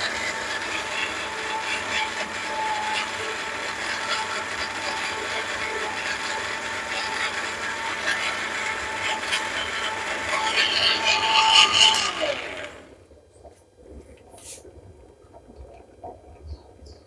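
Countertop blender running, puréeing chopped green pepper, celery and leek with water. It gets louder just before it is switched off about twelve seconds in, and the motor winds down with a falling pitch. A few faint clicks and knocks follow.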